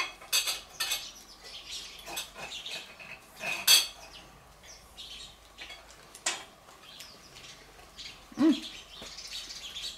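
Cutlery on plates: a knife and fork tapping and scraping on plates as food is cut and served, heard as scattered sharp clinks. A brief low hum sounds near the end.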